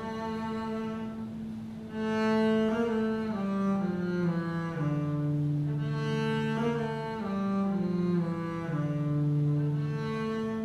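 Double bass bowed solo, playing a slow melodic line of sustained notes, some held for about a second.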